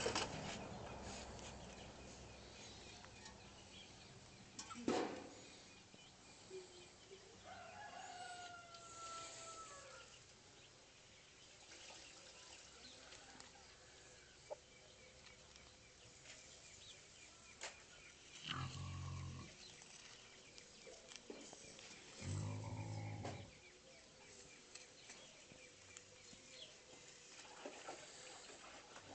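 Faint outdoor background with scattered small knocks and a few short animal calls: a brief gliding call about eight seconds in, and two low calls about a second long each about two-thirds of the way through.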